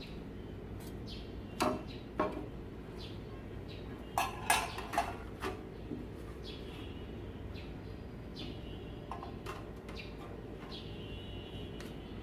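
Small metal kitchenware clinking and knocking together: two single clinks, then a quick cluster of them about four to five seconds in. Birds chirp in the background over a steady low hum.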